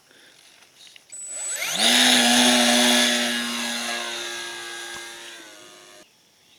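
RC model Cub float plane's motor throttling up, its pitch rising quickly about a second and a half in, then holding a steady whine that slowly fades as the plane moves off, dropping away sharply about six seconds in.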